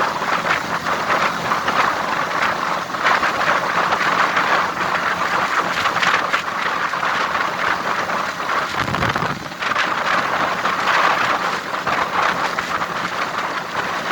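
Steady rushing wind and road noise while travelling in a vehicle, with a brief low rumble and a dip in the rush about nine seconds in.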